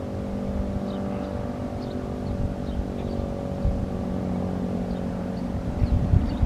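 A steady engine-like hum, with wind buffeting the microphone in low rumbling gusts that grow stronger near the end.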